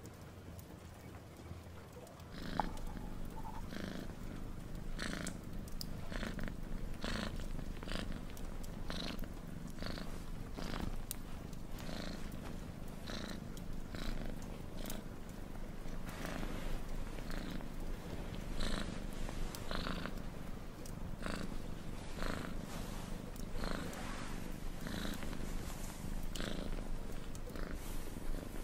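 Domestic cat purring steadily, starting about two seconds in, each breath in and out rising and falling about once a second.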